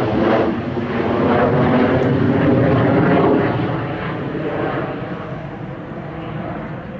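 Jet noise of a Eurofighter Typhoon's twin EJ200 turbofans as it flies past, loudest from about two to three and a half seconds in, then fading away.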